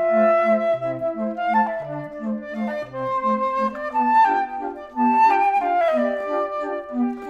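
Background music: a sustained, wavering melody line over a bouncy accompaniment of short repeated low notes.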